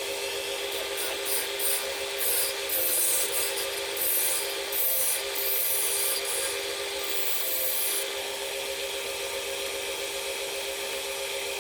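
Wood lathe running with a steady motor hum while a tool scrapes against the spinning wood blank in a series of short passes, which stop about eight seconds in.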